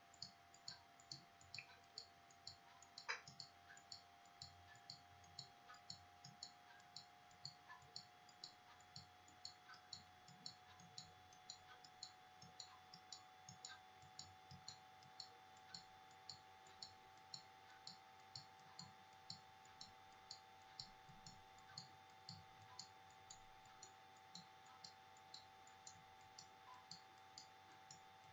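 Faint, evenly spaced clicks at about two a second, one a little louder about three seconds in: the move sounds of a chess replay as pieces are played one after another. Under them runs a faint steady hum.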